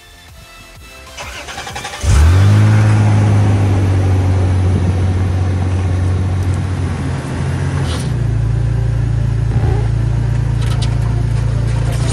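Toyota Supra Mk4's 2JZ straight-six cranked by the starter for about two seconds, then catching with a quick flare of revs and settling into a steady idle.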